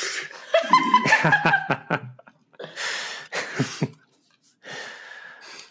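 People laughing: a voiced laugh for the first couple of seconds, then a few short breathy laughs trailing off.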